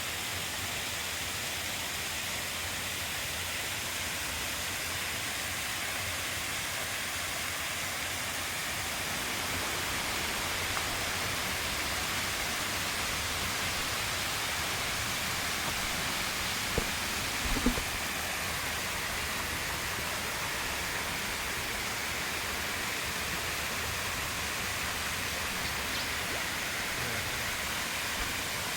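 Waterfall pouring steadily: a continuous rush of falling water, with a couple of short knocks about two-thirds of the way through.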